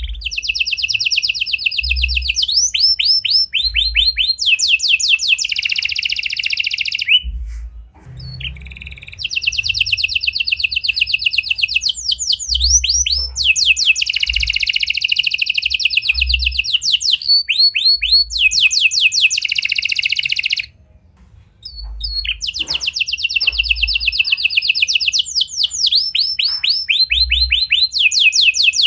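Domestic canary singing: long rolling trills of rapidly repeated notes, phrase after phrase, with short breaks about eight and twenty-one seconds in.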